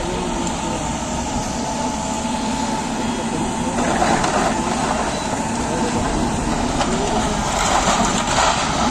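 Backhoe loader's diesel engine running steadily while it demolishes brick walls, with louder crashing of falling rubble about four seconds in and again near the end.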